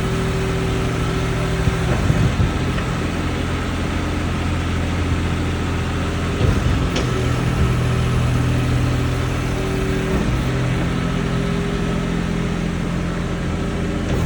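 A 1.8-tonne mini excavator's small diesel engine running steadily, its note shifting a few times as the machine works, with a short sharp click about halfway through.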